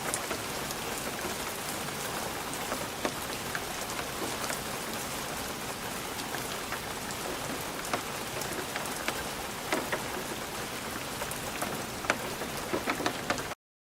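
Light rain on a glass windowpane: a steady hiss of rain with individual drops tapping on the glass, a few louder taps near the end, then the sound cuts off suddenly.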